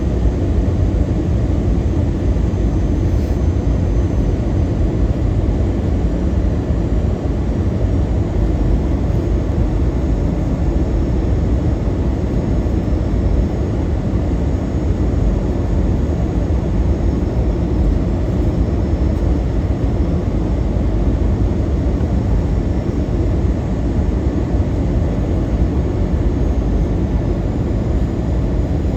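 Steady low rumble and hiss of a moving vehicle, heard from inside.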